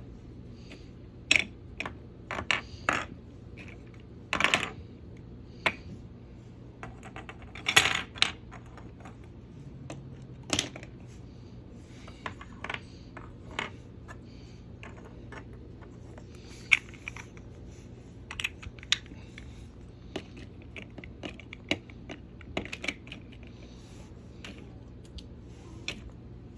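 Small plastic toy cargo pieces clicking and knocking as they are stacked and shifted on a toy train's cars, in irregular taps with the loudest knocks about four and eight seconds in. A faint steady low hum runs underneath.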